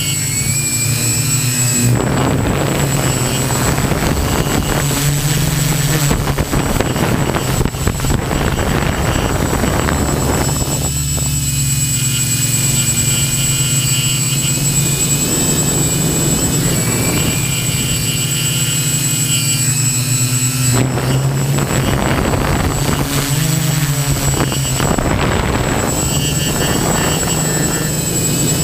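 Quadcopter's electric motors and propellers buzzing in flight, heard close from its onboard camera, the higher tones shifting in pitch several times as the motor speed changes.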